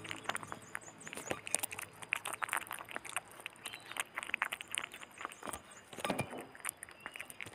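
Baby otter chewing raw fish: a quick, irregular run of wet smacking and crunching clicks, with a louder cluster about six seconds in.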